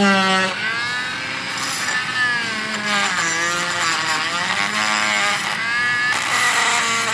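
Small rotary tool running a wire wheel brush over the bare die-cast metal body to polish it. Its motor whine wavers up and down in pitch.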